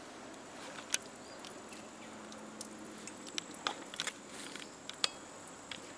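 Scattered light clicks and knocks from debris and belongings being handled and moved, over a faint steady background hiss.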